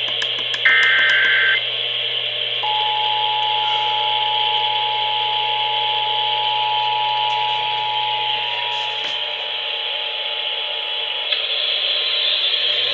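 Emergency Alert System broadcast heard through radio static. The last one-second burst of the warbling digital header ends about a second and a half in. Then the steady two-tone EAS attention signal sounds for about eight and a half seconds and cuts off, leaving the hiss.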